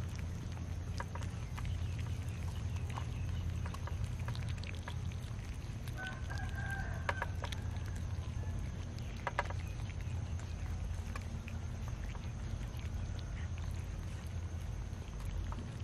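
Many cats eating cooked rice from a metal tray: soft chewing and small irregular clicks of teeth and rice on the tray, over a steady low rumble. A short pitched animal call sounds about six seconds in.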